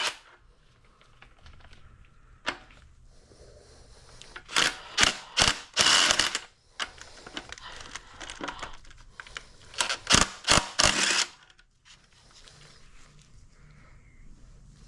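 Metal tools and engine parts clicking and clanking in short clusters, once about two and a half seconds in, then around five to six seconds and again from about eight to eleven seconds, as a connecting rod cap is taken off a 1931 Ford Model A four-cylinder engine.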